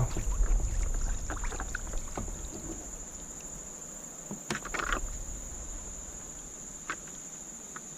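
A steady high-pitched insect drone, with a low rumble of wind or handling noise on the microphone and a few brief knocks around the canoe.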